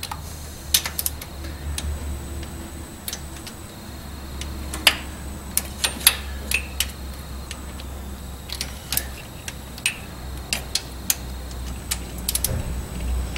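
Torque wrench clicking on the lower intake manifold bolts of a small-block V8 as each is brought to 27 inch-pounds: a string of sharp, irregular clicks, some in quick pairs, over a steady low hum.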